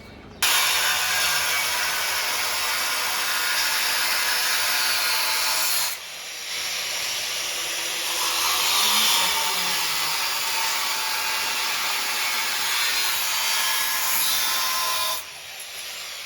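Angle grinder cutting the steel of an iron gate in two long passes: it starts about half a second in, drops off briefly around six seconds, then cuts again until shortly before the end.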